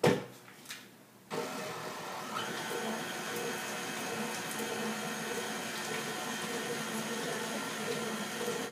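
A sharp click, then from about a second in an electric stand mixer runs steadily, its motor whining with a few even tones while the flat beater beats butter in the steel bowl. It stops suddenly at the end.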